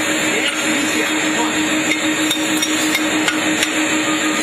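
A hammer striking metal in a run of about six light blows, starting a little past halfway, over a steady machine hum with a constant low tone.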